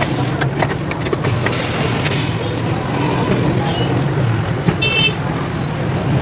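Steady traffic and workshop rumble, with a short burst of compressed-air hiss about a second and a half in and a brief high beep about five seconds in.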